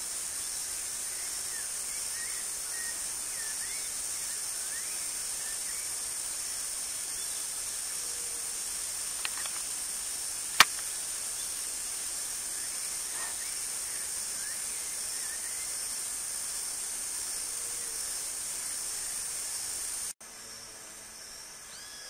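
Steady high-pitched insect drone with faint, scattered bird chirps and a single sharp click about ten and a half seconds in. The drone drops away about twenty seconds in.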